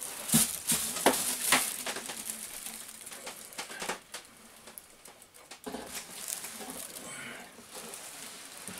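Clear plastic packaging bag rustling and crinkling as a laser printer is pulled up out of it and its cardboard box. It is busiest in the first couple of seconds, quieter around the middle, and picks up again after that.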